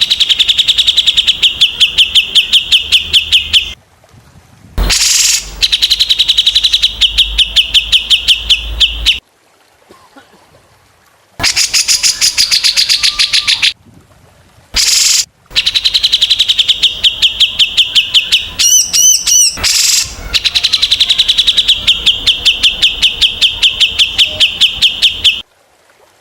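Small songbirds giving sharp 'tembakan' calls: long trains of high notes repeated rapidly and evenly, each train lasting several seconds and broken by short pauses. A brief twisting warble comes about two-thirds of the way through.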